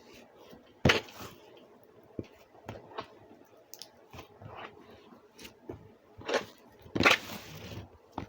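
Slime with small foam beads being pressed and spread out flat by hand, giving sticky crackles, squishes and sharp clicks at irregular moments; the loudest come about a second in and again about seven seconds in.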